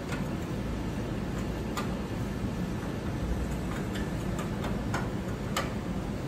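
Steady low hum, with a handful of sharp light clicks at irregular intervals over it.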